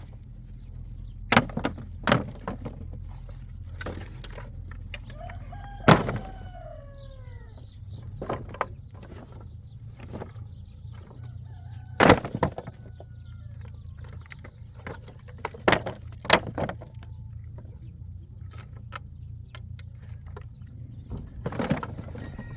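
A rooster crowing once, a single arching call that falls in pitch about five seconds in. Scattered sharp knocks and clatters, several of them louder than the crow, sound over a steady low hum.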